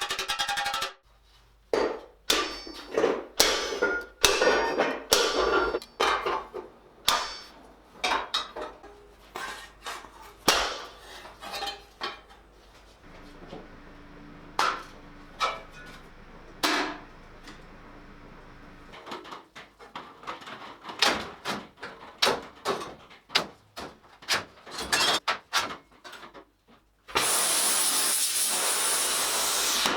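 Hand hammer striking a steel helmet shell, irregular ringing metallic blows in quick clusters with pauses between, fewer and fainter in the middle. Near the end a steady loud rushing noise runs for about three seconds.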